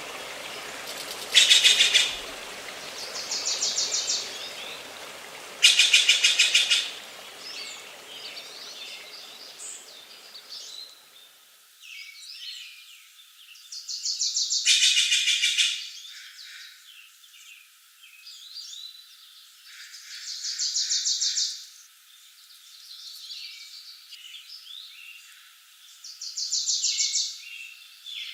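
Songbirds singing: loud rapid trills come every few seconds, with many softer chirps between them. A rushing stream-like noise underneath cuts off about a third of the way through, leaving only the birds.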